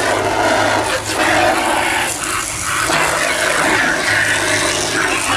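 A jet of water from a hose spray nozzle hitting a car's mud-caked wheel arch and splashing. Under it is the steady low hum of the 12 V diaphragm pump feeding the hose.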